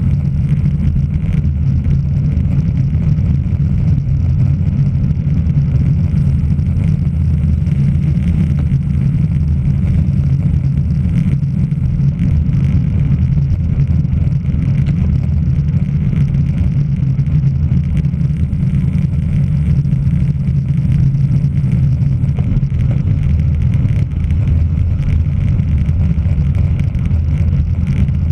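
Steady, loud wind rumble on a camera microphone carried along at racing speed on a bicycle, with no breaks.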